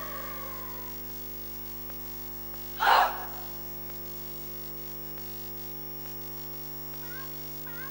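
A choral speaking team performing on stage: a drawn-out group voice gliding down and fading in the first second, then a single sharp, loud burst from the group about three seconds in, and short high chirping sounds near the end. A steady electrical hum from the hall's sound system runs underneath.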